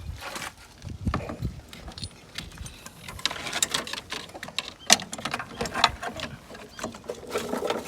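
Irregular clicks, taps and light knocks of hand tools and metal parts being handled while working in a car's engine bay.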